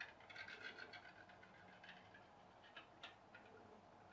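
Near silence broken by faint, irregular ticks and clicks from a tea-light-heated aluminium coil-boiler pop-pop boat, a quiet build that does not pop loudly.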